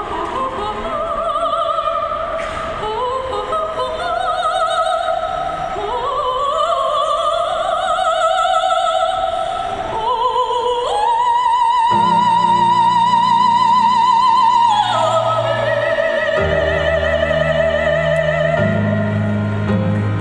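Soprano singing solo into a microphone over a backing track: phrases with wide vibrato climb to a high note held for about four seconds from roughly eleven seconds in, with low bass notes of the accompaniment underneath.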